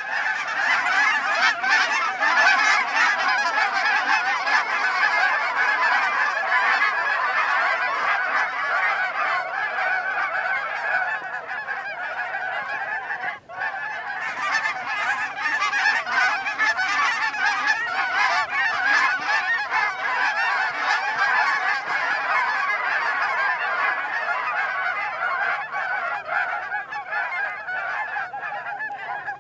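Many geese honking at once in a continuous, overlapping chorus, with a momentary break about thirteen seconds in.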